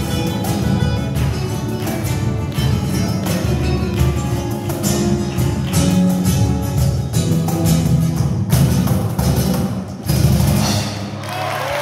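Flamenco guitar playing a tangos with accompaniment, hard strummed strokes driving the rhythm. The piece closes on a final strummed chord about ten seconds in, and applause starts near the end.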